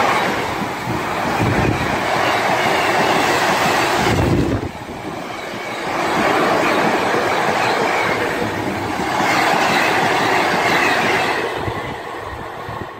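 Freight train of loaded car-carrier wagons rolling past, wheels clattering over the rails in repeated loud swells. The noise falls away near the end as the last wagon goes by.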